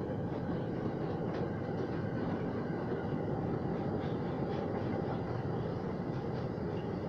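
Freight train of double-deck car-carrier wagons passing close by: a steady rumble of steel wheels on the rails, with a few faint high clicks here and there.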